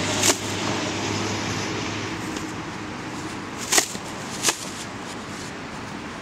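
A tennis racket strikes a ball in a sharp pop about a third of a second in, followed by two more sharp pops a little past the middle, the first of these the loudest, over steady wind noise on the microphone.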